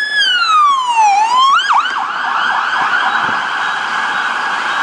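Police car's electronic siren: a long wail that falls and then rises again, switching about two seconds in to a fast yelp that sweeps rapidly up and down.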